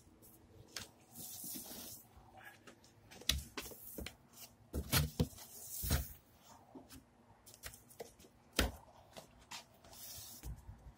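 Cardboard box and its packing inserts being opened and handled: scattered rustling and scraping of cardboard with a few sharper knocks, the strongest about six seconds in and another just before nine seconds.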